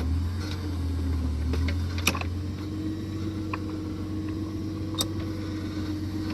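Engine of a powered post-hole auger rig running steadily as it drills through frozen, root-filled ground, with a steady whine that rises a little about two seconds in. A few sharp clicks or knocks sound over it, the loudest about two seconds in.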